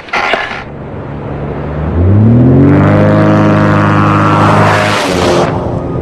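A vehicle engine revving up, its pitch rising, then holding at a steady high speed before it stops abruptly.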